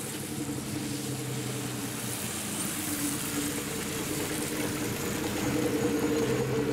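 Nishitetsu route bus's engine running as the bus pulls in to the stop, a steady hum with tyre hiss, growing louder as it comes alongside.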